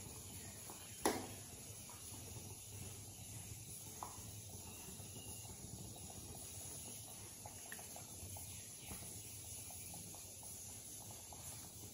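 A metal ladle clinks once against a metal serving bowl about a second in, with a short ring, followed by a few softer taps as curry is spooned out, over a steady low hum.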